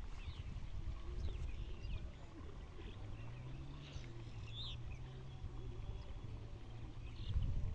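Quiet outdoor ambience at a pond: a steady low rumble of wind on the microphone, with a few short, faint bird chirps and a faint low hum in the middle.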